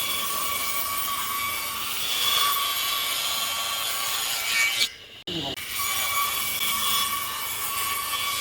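A power tool working wood: a steady motor whine over a rasping, grinding noise, broken by a brief cut-out about five seconds in.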